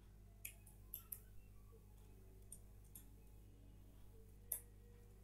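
Faint computer keyboard keystrokes over near-silent room hum: a few scattered clicks in the first second and a half and one more near the end.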